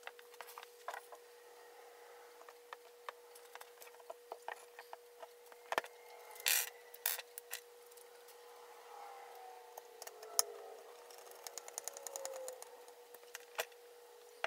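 Faint clicks, taps and short scrapes of small screws, a screwdriver and pliers being handled while a bare hard drive and its circuit board are screwed back together, with a quick run of fine clicks near the end. A faint steady hum lies underneath.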